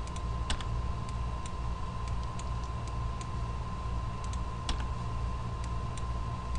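Scattered sharp clicks of a computer keyboard and mouse as the F6 key is pressed and the mouse button clicked to add keyframes, over a steady low hum with a faint constant whine.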